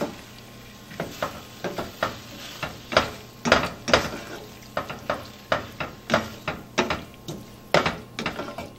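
Spatula stirring onions and peppers in a stainless steel sauté pan: short scraping knocks against the pan, roughly two a second, over a faint sizzle.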